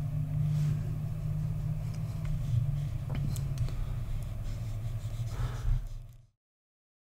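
A steady low hum with a few short mouse clicks, which cuts off abruptly to dead silence a little after six seconds.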